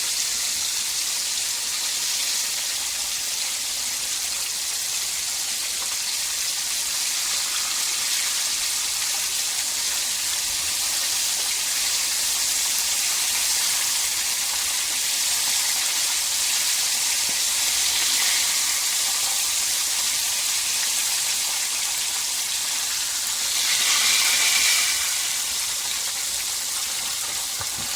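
Chicken tenders deep-frying in hot oil, a steady sizzle, with a brief louder swell near the end.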